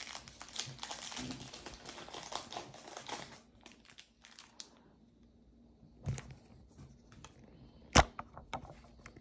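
Foil Pokémon booster-pack wrapper crinkling and tearing as it is opened, for about three seconds, then quieter rustling of cards being handled. A sharp knock about eight seconds in is the loudest sound.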